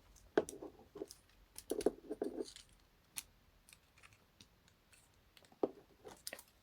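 Hard plastic parts of a Transformers action figure clicking and knocking as it is handled and folded into its vehicle mode: a cluster of clicks about half a second in, more around two seconds in, and a few sharp clicks near the end.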